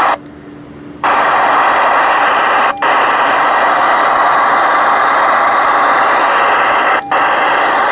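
Loud, steady receiver static hiss from a President Richard ten-meter radio's speaker. The hiss comes in about a second in and drops out briefly twice with a click.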